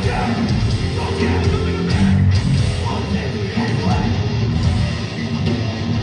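Hardcore punk band playing live through a large PA: distorted guitars, bass and drums at full volume.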